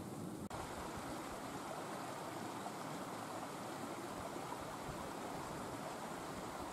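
Steady rushing of wind, with wind noise on the microphone. There is a brief dropout about half a second in.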